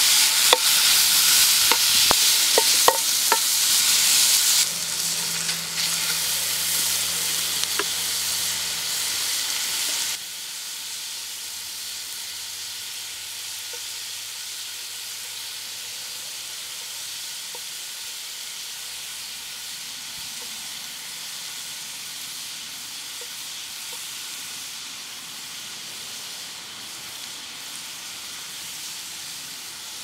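Sliced rib-eye steak sizzling loudly in hot fat in a frying pan, with a few sharp clicks of the knife against the pan in the first few seconds. About ten seconds in the sizzle drops to a quieter, steady frying.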